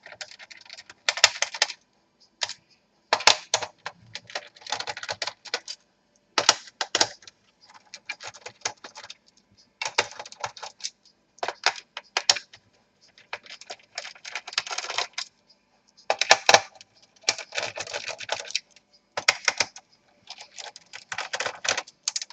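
Bursts of small clicks and rattles, a cluster every second or two, as screws are taken out of a laptop's plastic bottom case with a screwdriver.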